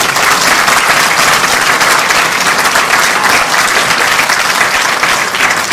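Theatre audience applauding: dense, steady clapping from many hands, with the actors on stage joining in.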